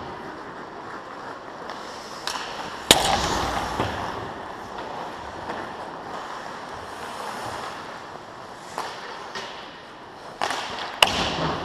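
Ice hockey play: skate blades scraping and carving the ice under a steady arena hum, with a loud sharp crack of stick or puck about three seconds in and another near the end, each echoing around the rink.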